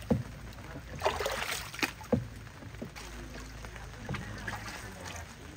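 Paddle strokes in water from a small paddle boat: a splashing swish about a second in and a few short, sharp knocks.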